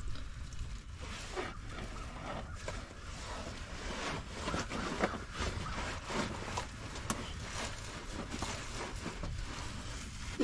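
Faint, irregular clicks and scrapes of a socket wrench on a crankshaft pulley bolt, someone trying to turn a seized engine over by hand; the bolt is only tightening and the engine is not turning. A steady low rumble underneath.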